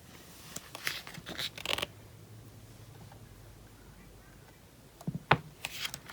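Photobook pages being handled and turned: a run of crisp paper rustles and clicks in the first two seconds, a quiet stretch, then a sharp tap about five seconds in followed by more rustling.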